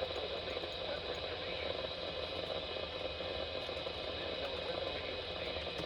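NOAA weather radio receiver giving a steady static hiss with no programme audio.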